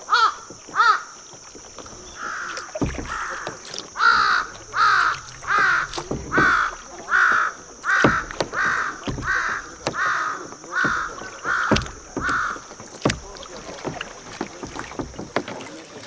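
A crow cawing in long, evenly spaced runs, about one and a half caws a second: a short run that stops about a second in, then about a dozen caws that end about three-quarters through. Knocks and light splashes of kayak paddling run underneath.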